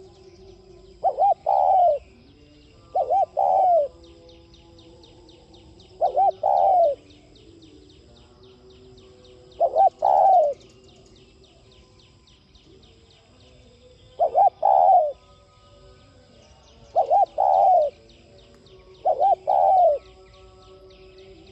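Spotted dove cooing: seven phrases a few seconds apart, each two quick notes followed by a longer falling coo. A faint, fast, high-pitched ticking trill runs behind the first two-thirds.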